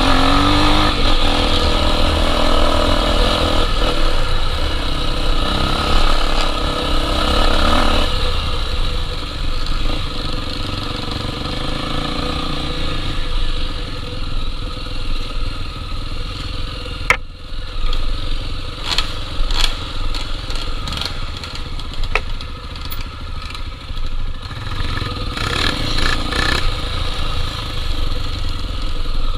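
Honda XR 250 Tornado's single-cylinder four-stroke engine running under way, rising in pitch at the start and dropping to a quieter, lower run after about eight seconds. In the second half, scattered sharp knocks and rattles.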